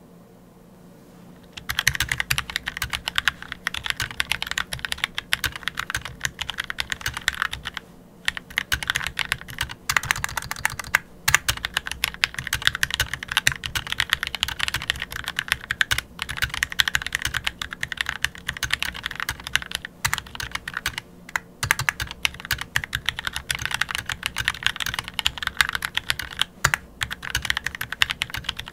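Anne Pro 2 60% mechanical keyboard with Gateron Red linear switches lubed with petroleum jelly, typed on quickly on a desk mat. The typing starts about a second and a half in and goes on with a few short pauses.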